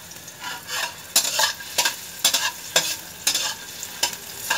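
Metal spatula scraping and knocking around a stainless steel wok, about two strokes a second, over the steady sizzle of chopped garlic and onion frying in oil: the sauté stage of chicken adobo.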